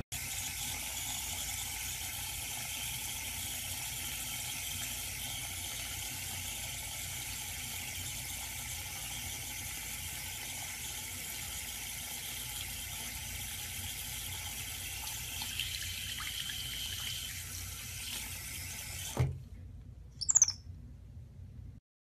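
Steady hiss of running tap water. A knock comes about nineteen seconds in, and a baby white-faced capuchin gives a short high squeak soon after.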